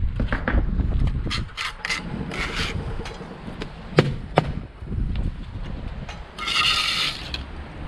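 Mason's trowel scraping mortar on a course of pitch-faced stone: several short scrapes, two sharp knocks close together about four seconds in, and a harsher scrape near the end.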